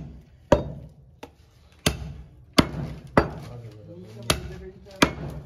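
Butcher's cleaver chopping into a goat leg on a wooden chopping block: about seven sharp chops, spaced unevenly about half a second to a second apart, two of them lighter.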